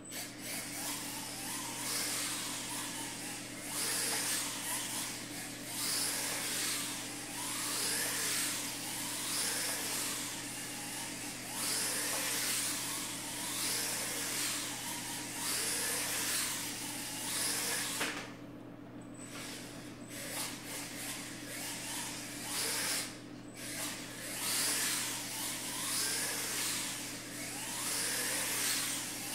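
1RC Racing 1/18-scale electric RC car lapping a small track: its motor whine rises and falls every couple of seconds as it speeds down each straight and lets off into the turns. The whine drops away briefly twice about two-thirds of the way through. A steady low hum runs underneath.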